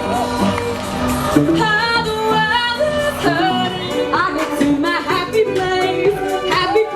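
A singer performing a pop song over music, the voice gliding between sustained notes.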